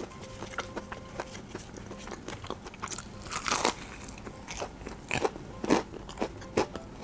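Crispy breaded fried chicken being bitten and chewed close to the microphone: small crackles of the crust throughout, a longer crunchy bite about three and a half seconds in, then a few sharp crunches.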